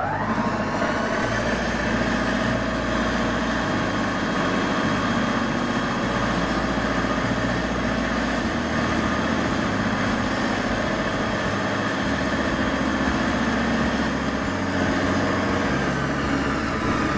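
Belt-driven 2 hp column drill press running steadily at speed just after starting, a constant motor hum with steady tones over it.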